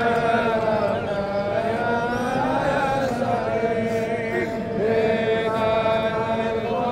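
A large congregation of Jewish men chanting a prayer together, many voices holding and sliding along one slow melody.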